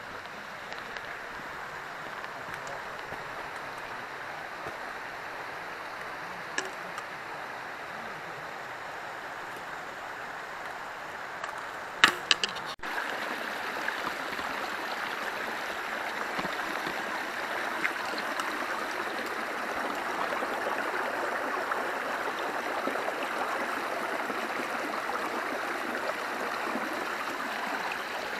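Running stream water, a steady rushing that grows a little louder about halfway through. A few sharp clicks sound about twelve seconds in.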